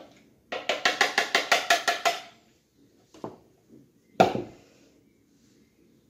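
Clear measuring jug rapped quickly against the rim of a Thermomix's stainless steel mixing bowl, about a dozen ringing knocks in under two seconds, to knock out the last of the flour. A single louder clack about four seconds in, as a container is set down or knocked.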